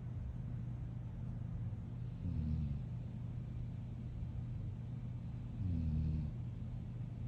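A sleeping pet snoring: two low snores, each about half a second long, about three and a half seconds apart, over a steady low hum.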